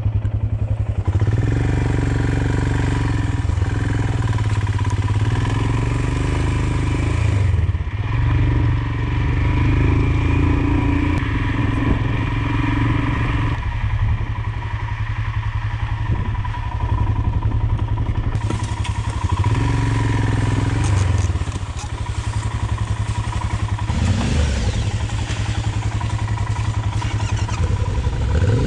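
Royal Enfield Himalayan 411's single-cylinder engine running as the motorcycle rides over a wet, rutted gravel road. The engine note rises and falls with throttle changes and is quieter for a stretch past the middle as the bike slows.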